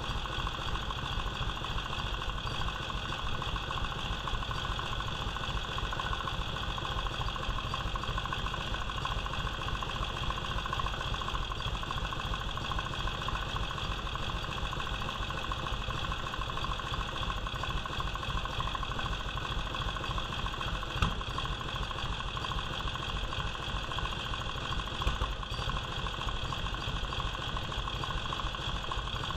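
1946 Indian's flathead V-twin engine idling steadily while it is being tuned, with a rapid low pulsing from its firing.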